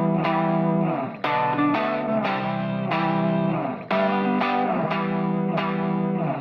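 Background music: a plucked guitar with effects playing a repeating pattern of notes.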